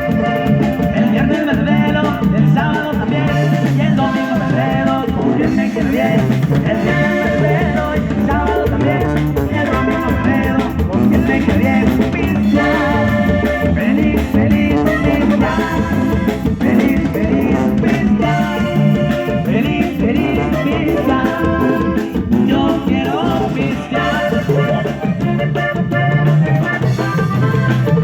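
Live band playing a cumbia medley, steady and loud throughout.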